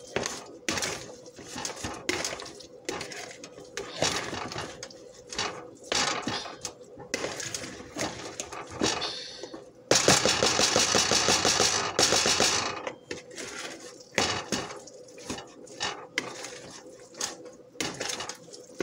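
Metal spoon stirring a meat and egg mixture in a plastic bowl, clicking and knocking against the bowl a few times a second. About ten seconds in comes a loud stretch of fast, even beating lasting over two seconds.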